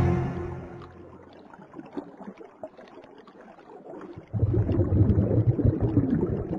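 Underwater sound effect of bubbling water: the music fades out in the first second, leaving faint scattered pops, and about four seconds in a louder, low bubbling rush sets in and fades near the end.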